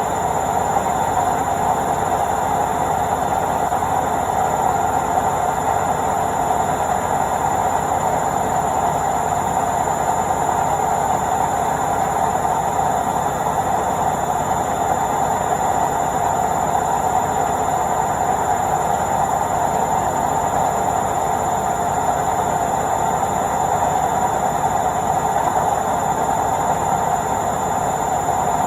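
Washing machine in its spin cycle, the drum spinning at a steady speed: an even whir with a fast fine rattle underneath and a thin high whine, unchanging throughout.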